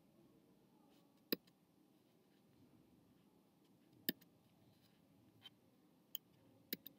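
Sharp single computer clicks in near silence as a slideshow is stepped through: two loud ones well apart, then a few quicker, softer ones near the end, the last two in quick succession.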